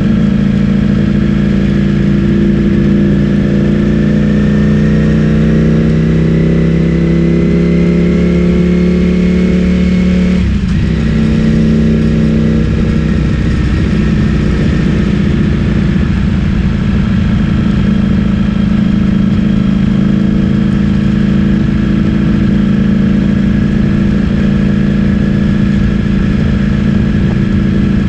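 Ducati Streetfighter V4 S's 1103 cc V4 engine through an Akrapovic full-system exhaust, heard from on the bike while riding. Its pitch climbs slowly for several seconds, drops off briefly about ten seconds in, then holds a steady cruising note.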